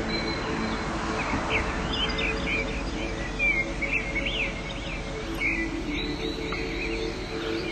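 Small birds chirping in many quick, repeated calls over background music that holds long low notes.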